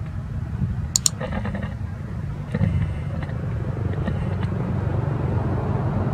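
Short, high-pitched squealing cries from a newborn macaque as its mother drags it: one about a second in, another around three seconds in, and a faint one near four seconds. Under the cries runs a steady low rumble.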